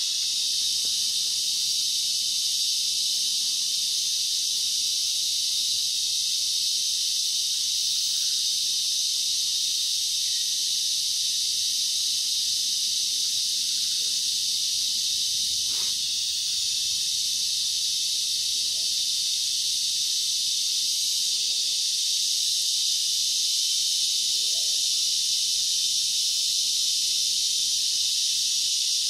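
Dense, steady high-pitched chorus of rainforest insects, an unbroken shrill hiss with no pauses.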